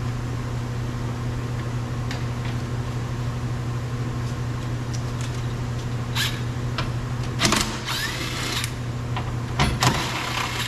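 Steady low hum with a few short bursts of tool noise in the second half, as two 10 mm screws on the glass run channel inside a car's rear door are loosened.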